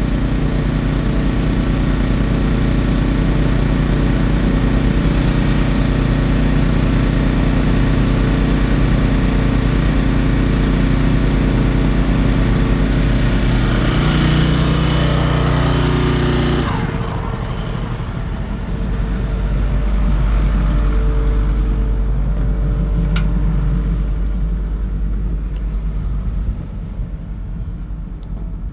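Komatsu excavator's diesel engine running steadily. It grows louder and brighter for a couple of seconds past the middle, then drops abruptly to a lower, duller running sound with a few faint clicks.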